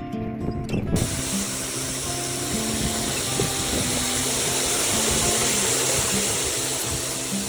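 Water running steadily into a container, filling it, starting suddenly about a second in, with background music underneath.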